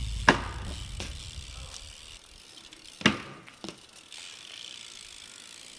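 BMX bike riding: low tyre rumble for the first couple of seconds, then a sharp knock near the start and another about three seconds in, with a smaller knock just after, as of the bike hitting the ground or an edge.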